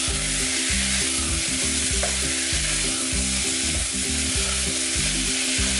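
Chopped vegetables (beans, carrots, tomatoes) sizzling steadily as they fry in hot oil in an aluminium pressure cooker, stirred with a wooden spatula.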